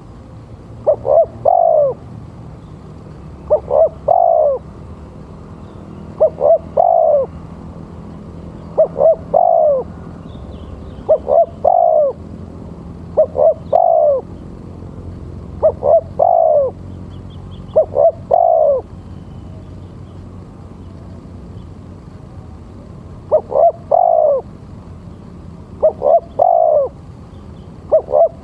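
Male spotted dove (tekukur) cooing its song over and over. Each phrase is two or three short notes and then a longer falling coo, repeated about every two and a half seconds, with a pause of a few seconds past the middle.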